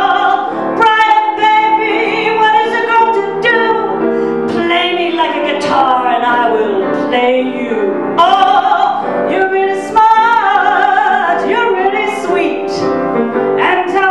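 A woman singing a comic song into a microphone, accompanied by piano.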